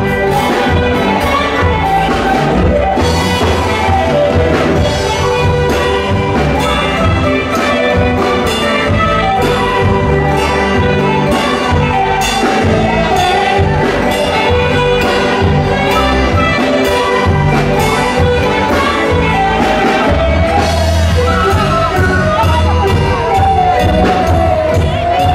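Live orquesta band playing loud amplified music, with saxophone and horns carrying the melody over guitars and a steady bass beat.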